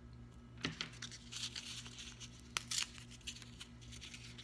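A small wrapper crinkling and tearing as fingers pick it open, in quick scattered crackles with a sharp click about a second in and another near the middle, over a faint steady low hum.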